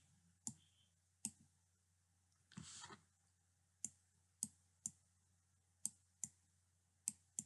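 Computer mouse buttons clicking: about eight single, sharp clicks at irregular intervals while a signature is drawn in a paint program, with a brief soft rustle about two and a half seconds in.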